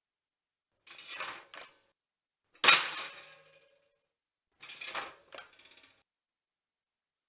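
Pop-up toaster's metal lever and spring carriage clattering: a softer double clack about a second in, a sharp metallic clang with a brief ring near three seconds in, the loudest of them, and another double clack around five seconds.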